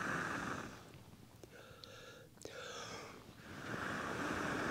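A person blowing long, steady breaths into the smoking embers of a twig campfire to get it to flame. One blow tails off before the first second is out, and another starts about three and a half seconds in.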